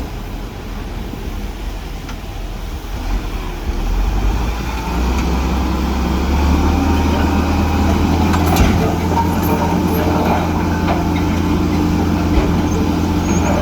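Heavy diesel engine of earthmoving machinery running, growing louder about four to six seconds in and then holding steady, with a brief knock partway through.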